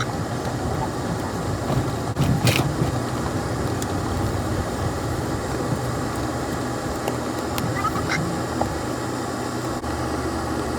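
Off-road vehicle driving on a dirt trail: steady engine hum and rough-road noise, with a brief louder rattle a couple of seconds in.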